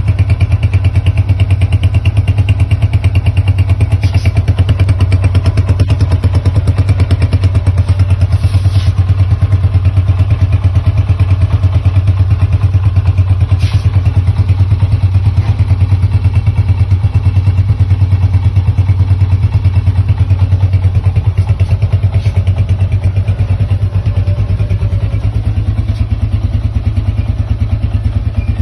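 1979 Honda 125 motorcycle engine running steadily at idle through an aftermarket silencer, a rapid even exhaust beat; it gets a little quieter near the end.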